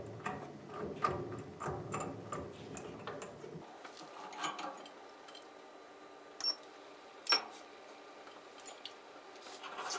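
Small metal clicks and knocks as a machine vise and brass workpiece are shifted into place on a small milling machine's table. After about three and a half seconds the handling stops, leaving a faint steady hum broken by two sharp ticks.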